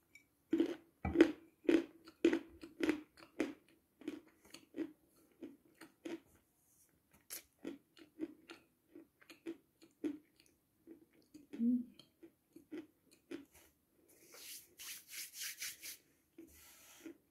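Close-up chewing with the mouth closed: soft wet clicks, regular at about two chews a second at first, then slower and irregular. Near the end a brief run of scratchy rasping pulses.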